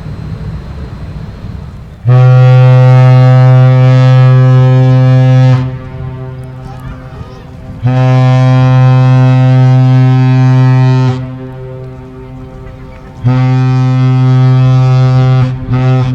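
Cruise ship WORLD VOYAGER's deep ship horn (typhon) sounding three long, steady blasts, about two seconds apart, the last one a little shorter.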